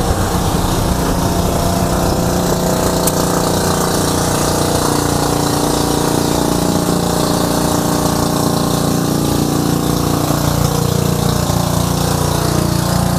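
An engine idling steadily: a continuous even hum at a fixed pitch, which shifts slightly about ten seconds in.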